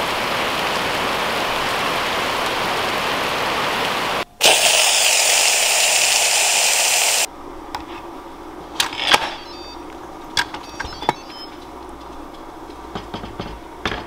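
Heavy rain falling steadily. About four seconds in it gives way to a loud hiss of steam venting from an electric pressure cooker's pressure-release valve through a steam diverter, which cuts off suddenly after about three seconds. Then a few clicks and knocks as the cooker's lid is handled.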